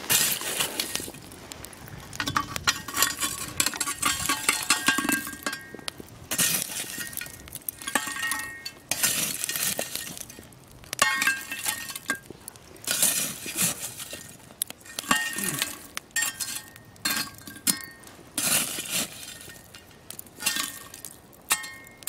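Lumps of charcoal clinking and clattering against the metal of a cast-iron Dutch oven and pan as coals are moved, in repeated short bursts with a faint metallic ring.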